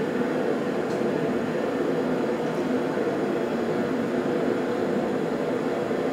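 Gas forge burner running with a steady, unbroken rushing noise.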